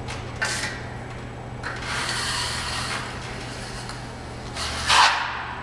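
A 14-inch flat drywall trowel scraping across a ceiling as it spreads a thin skim coat of pre-bed joint filler: a short stroke near the start, a longer one about two seconds in, and the loudest near the end, over a low steady hum.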